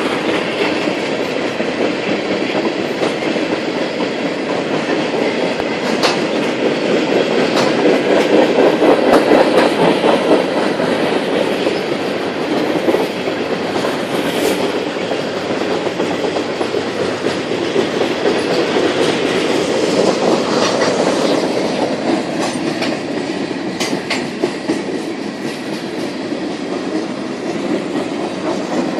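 Freight train cars rolling past, a steady rumble with the clickety-clack of wheels over rail joints and scattered sharp clicks.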